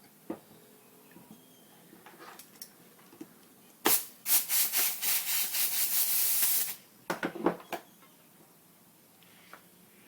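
Compressed air blown into a Harley-Davidson Electra Glide brake caliper to force its stuck pistons out: a short blast about four seconds in, then a loud hiss for about two and a half seconds, followed by a few sharp clicks.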